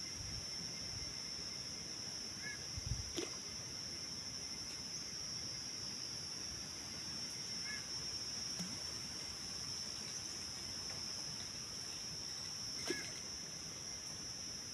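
Rural outdoor ambience: a steady high-pitched drone with a short two-note bird call repeating about every five seconds. A couple of faint knocks are heard, one near the start and one near the end.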